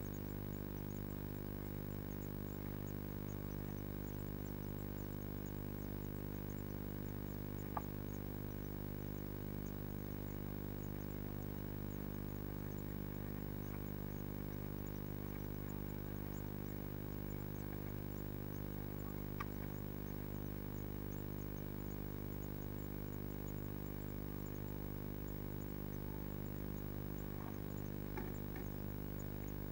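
Steady electrical hum from a nest box camera's audio, unchanging throughout, with three brief soft clicks spread through it.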